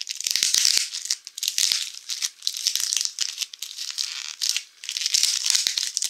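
Clear plastic wrapping crinkling and crackling under the hands as a package wrapped in plastic and packing tape is handled and pulled at, in rapid rustling waves.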